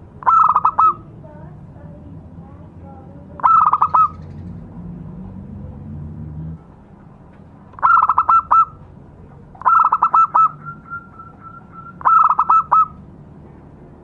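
Zebra dove (perkutut) cooing: five short phrases of quick staccato coos, each under a second long and spaced a few seconds apart, with a softer run of short notes trailing after the fourth phrase.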